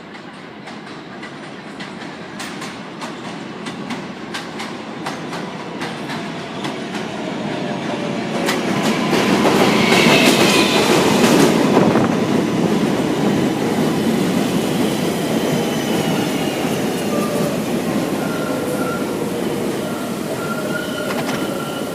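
R143 subway train pulling into the station: its wheels click rapidly over rail joints as it approaches, the noise of the cars peaks as they pass, and then thin squealing tones come in as it slows to a stop.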